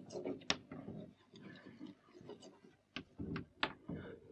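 Chalk writing on a blackboard: faint, irregular sharp taps and short scratches as the chalk strikes and drags across the board.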